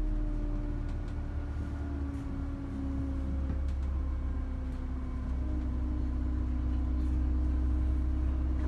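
Bus running at low speed, heard from inside the driver's cab: a steady low rumble with a faint whine that slowly drifts in pitch.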